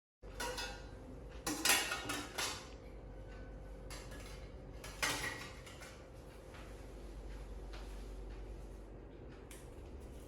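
Clinks and clatter of hard objects being handled and set down, in a cluster about one and a half to two and a half seconds in and again at about five seconds, over a steady low hum.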